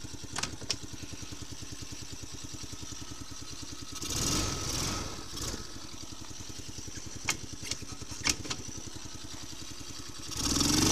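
Small four-stroke engine of a children's quad bike idling steadily, with a few sharp clicks and two brief louder surges, one about four seconds in and one near the end.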